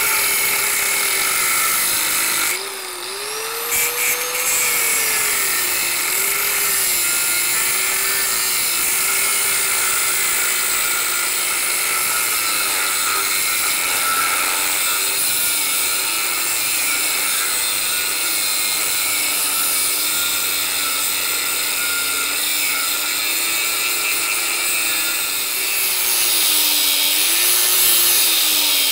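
Angle grinder with an abrasive cut-off disc cutting into an M2 cobalt high-speed steel tool blank, the grinding noise over the motor's whine, which wavers in pitch as the disc is pressed into the steel. The sound dips briefly about three seconds in, then runs on steadily.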